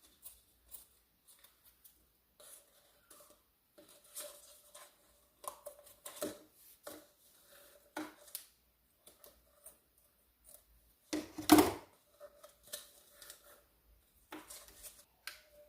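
Craft materials being handled on a tabletop: soft scattered rustles, scrapes and light clicks, with one louder knock about eleven and a half seconds in, like an object set down.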